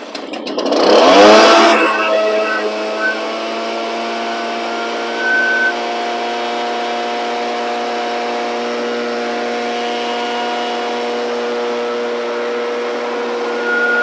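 Echo PB-770T backpack blower's two-stroke engine, cranked off choke after its first fire, catching and revving up in the first two seconds, then running steadily.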